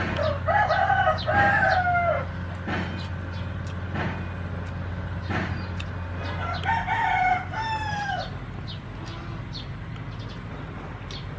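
A rooster crowing twice, about six seconds apart, each crow a drawn-out call that ends on a falling note.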